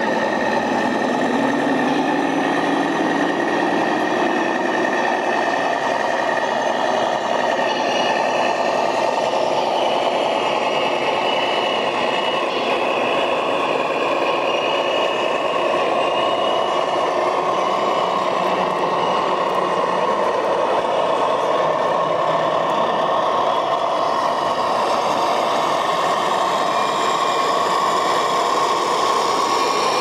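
Remote-controlled scale trucks running, with steady truck-engine sound throughout. In the first few seconds its pitch rises and then falls.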